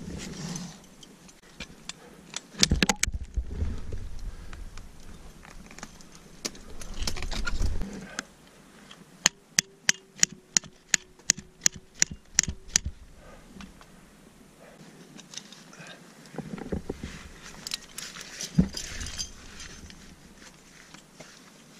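Climbing gear at work on a mixed rock-and-ice route: ice axe picks and crampon points tapping and scraping on rock and ice, with metal hardware on the harness clinking. About a third of the way in there is a quick run of about a dozen sharp metallic clicks, three to four a second. Low rumbles of wind on the microphone come and go.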